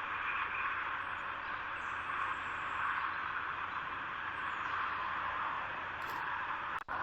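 Steady hiss of wind rustling through foliage, even throughout, with a brief sudden cut-out near the end.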